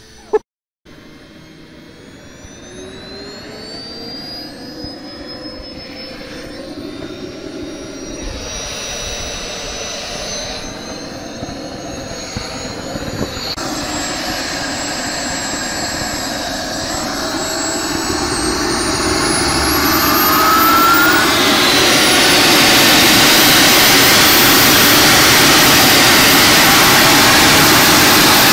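Small jet engine on a kayak running and spooling up, with a sharp click just at the start. A high whine climbs in pitch while the engine grows steadily louder, then holds at full power for the last several seconds.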